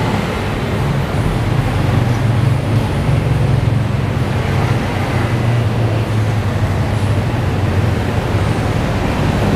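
Steady road traffic noise, with a low rumble that swells for a few seconds in the middle.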